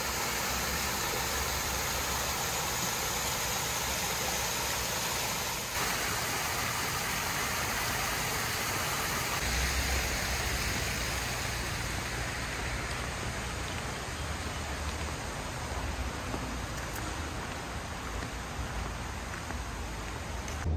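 Small landscaped rock waterfalls splashing into a pond: a steady rushing of falling water.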